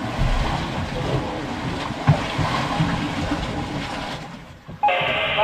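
Wind and sea noise on a boat at sea: an uneven low rumble with a hiss of water over it.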